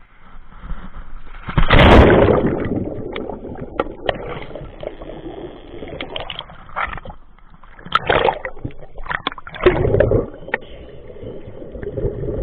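Water sloshing and splashing in uneven surges, loudest about two seconds in and again near eight and ten seconds.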